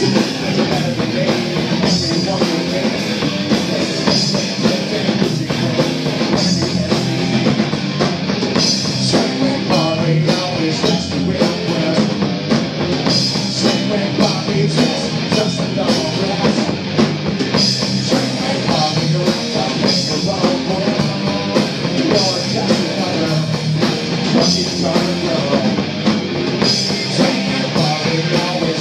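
Live rock band playing an original song: electric guitars and a drum kit with a steady beat, and a male singer singing into a handheld microphone.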